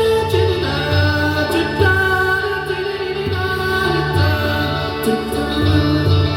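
Band playing a song live, with a singer's held notes over repeating bass notes and sustained chords.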